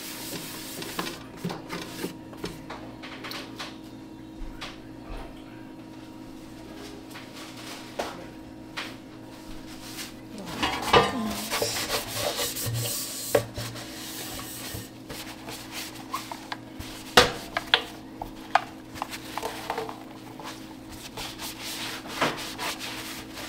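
A cloth rubbing and wiping the inside of a new air fryer and its basket, with scattered clicks and knocks as the basket is handled; one sharp knock, the loudest sound, comes about two-thirds of the way through.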